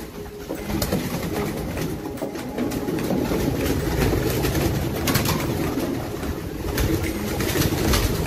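Racing pigeons cooing continuously, with scattered short clicks and knocks.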